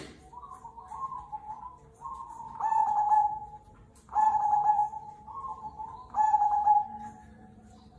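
Zebra dove (perkutut) cooing its song. Each phrase is a soft, stuttering run of notes that leads into a loud, lower held coo, repeated about every one and a half to two seconds, three times.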